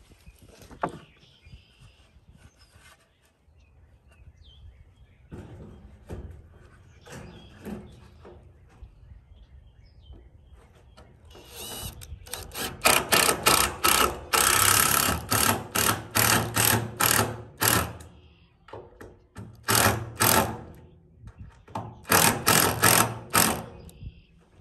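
Faint knocks and handling of boards, then about halfway through a cordless drill driving screws into wood in three runs: one long run, then two shorter ones near the end.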